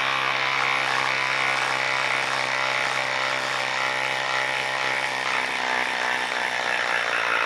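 Craftsman cordless impact driver hammering steadily under load, driving a long lag screw into a wooden stump through a socket adapter. The rapid impacts hold an even pitch.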